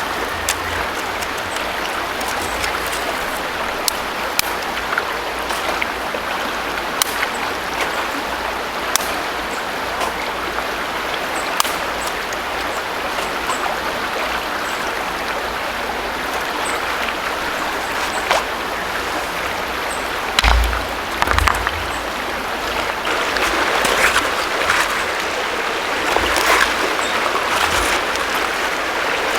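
River water flowing steadily, with scattered sharp clicks and a few low thumps about two-thirds of the way through.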